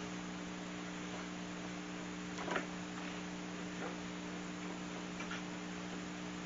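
Steady electrical hum with a few faint clicks and one light knock about two and a half seconds in, from parts being handled.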